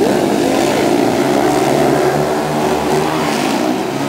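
A pack of speedway motorcycles racing on a dirt oval, their single-cylinder engines running loud and steady together.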